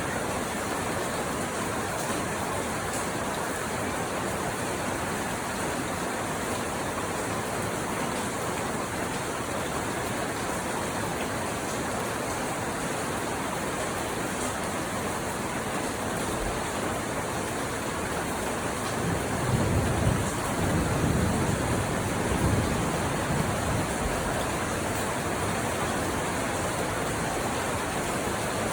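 Steady rainfall, an even hiss of falling rain. About two-thirds of the way through, a low rumble swells for a few seconds and fades.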